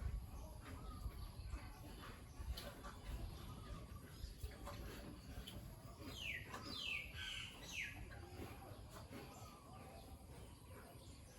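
A bird giving three or four quick falling calls about six to eight seconds in, over faint low rumble and scattered small ticks.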